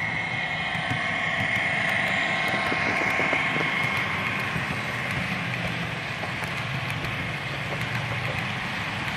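00 gauge model trains running past on the layout track: a steady high motor whine over the rumble of wheels on the rails.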